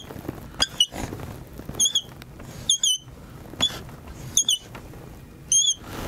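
Dry-erase marker squeaking on a whiteboard while letters are written: about six short, high-pitched squeaks, roughly one a second, with faint rubbing of the tip between them.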